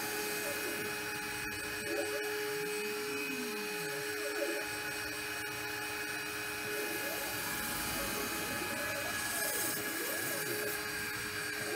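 DIY five-axis CNC router carving XPS foam: the spindle runs with a steady whine over a hiss, while the axis drive motors rise and fall in pitch again and again as the head moves and tilts along the cut.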